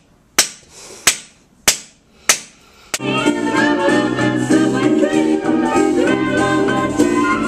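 A song playing: a sparse opening of five sharp percussive hits, about one every 0.6 s, then at about three seconds the full band and a singing voice come in.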